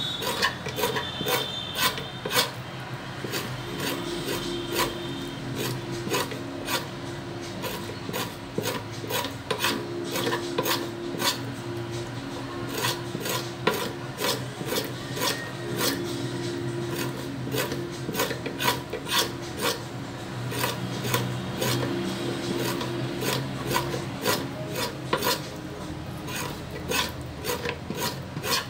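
Hog intestine being scraped clean along a wooden cutting board with a small hand-held scraper, in rhythmic rasping strokes about two to three a second. This is the scraping stage of making hog casing for sausage.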